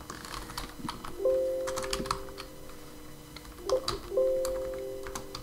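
Computer keyboard typing: a loose run of key clicks as a search word is typed into a browser find bar. Held musical notes come in about a second in and again near the end, each fading away.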